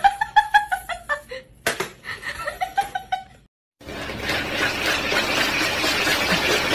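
High-pitched laughter with a few sharp clicks, then a short break and a steady rushing noise.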